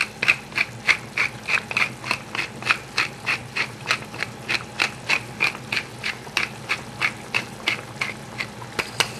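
Hand pepper mill grinding black peppercorns: a steady run of rapid clicks, about four a second, from the grinder being twisted.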